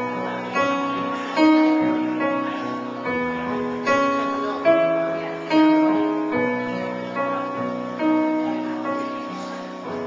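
Piano playing a slow series of chords, a new chord struck about once a second and left to ring, the last one dying away near the end.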